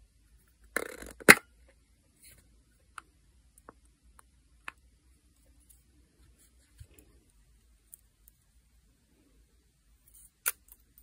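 Nail art tools and supplies being handled: a brief rustle followed by a loud, sharp click about a second in, then scattered light taps and another sharp click near the end.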